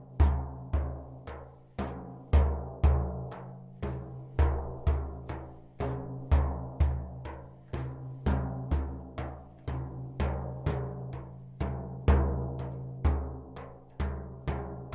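A deep-toned drum struck in a steady, repeating rhythm of about two to three beats a second, some beats accented. Each stroke booms and rings out.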